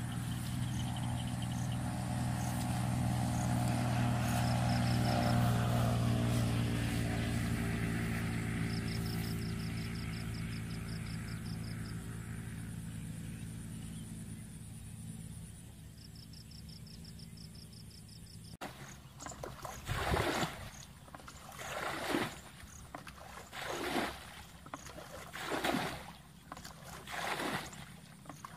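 A steady engine hum that slowly fades away, then a plastic bucket scooping and flinging water out of a shallow muddy pool, a splash about every two seconds, as the pool is bailed out by hand.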